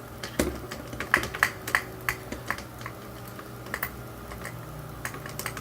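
Irregular light clicks and taps of small plastic toy-drone parts being handled and pried apart, a quick run of them in the first two seconds, a pair near the middle and a few more near the end.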